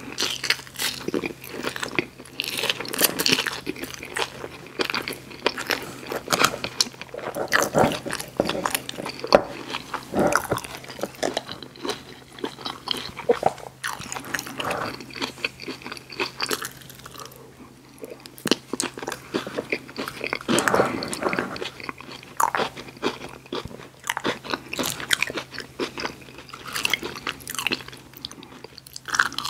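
A person chewing and crunching fast food up close to the microphone, with mouth sounds: a steady run of short, crisp bites and chews, starting on French fries, with a brief lull about two-thirds of the way through.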